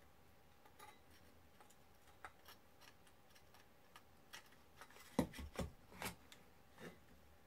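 Light clicks and small knocks of a solar charge controller's circuit board and finned metal case being handled and fitted back together, with a short cluster of louder knocks about five to six seconds in.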